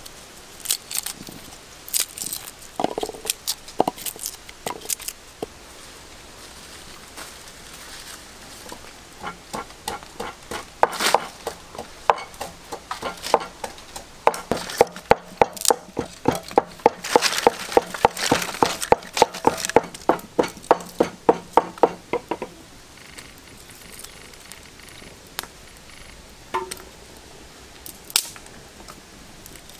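Hand food preparation: scattered light clicks and knocks, then a steady run of rhythmic knocks, about three or four a second with a faint ringing tone, from about nine seconds in until about twenty-two seconds in.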